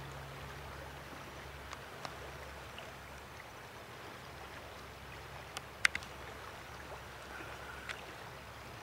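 Steady rushing of river water, with a few short sharp clicks, the loudest about six seconds in.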